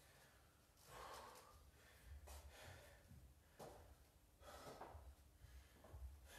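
Faint heavy breathing of a person exerting himself: sharp breaths roughly every second and a half, with faint low thuds in between.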